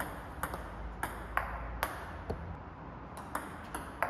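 Table tennis rally: the ball clicks sharply off the bats and the table in quick succession, about two hits a second, one player blocking with Sauer & Tröger Monkey long-pimpled rubber.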